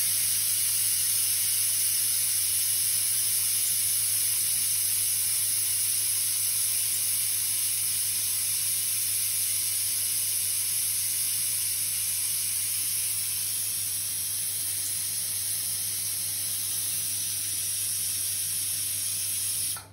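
Pressure cooker whistling: a long, steady, high hiss of steam venting through the weight on the lid as the cooker reaches pressure. It cuts off suddenly near the end.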